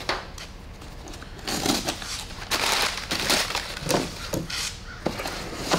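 A cardboard box being torn open by hand: cardboard and tape tearing and brown packing paper crinkling in several short bursts.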